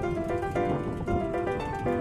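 Background music: a piano melody of short stepped notes, over a low steady rumble.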